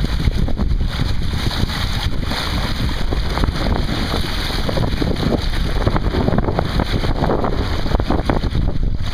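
Wind buffeting the microphone over water rushing and splashing along the hull of a Hobie Adventure Island sailing kayak moving fast under sail. The sound is a loud, steady rushing with a heavy low rumble.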